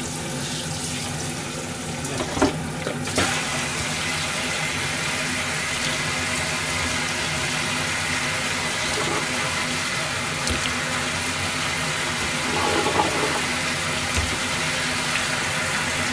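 Kitchen tap running into a stainless-steel sink, a steady rush of water that gets fuller about three seconds in. A few light knife taps on a plastic cutting board sound over it.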